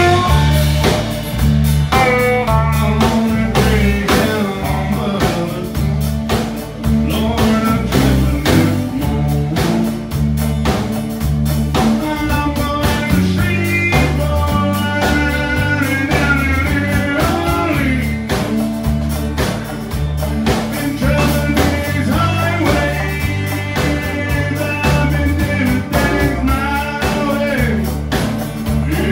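Live country band playing with a steady drum beat: fiddle bowed over strummed acoustic guitar, electric guitar and drum kit.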